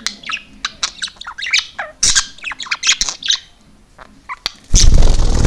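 Young budgerigar chattering: a quick run of short chirps and squeaks over the first three seconds or so. A loud rustling burst comes near the end.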